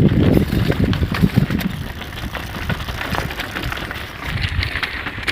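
Bicycle jolting over a rough dirt road: the handlebar phone mount rattles and knocks, with a low rumble on the microphone that is loudest in the first two seconds and then eases off.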